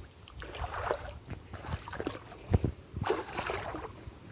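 Shallow stream water splashing and sloshing as a cast net is hauled in by hand, in irregular bursts, with one louder splash about two and a half seconds in.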